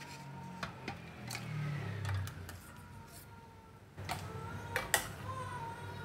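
A metal ladle scooping boiled pumpkin chunks from a stainless steel pot and tipping them into a plastic blender jar: scattered light clinks and knocks, with two sharp ones about five seconds in.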